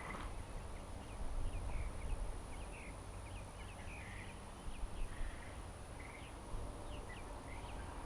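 Birds chirping faintly in short, quick notes scattered all through, over a low steady outdoor rumble.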